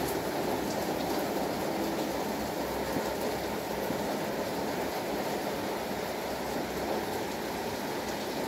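Heavy rain falling steadily: a dense, even rush of water with faint scattered drop ticks, with no let-up.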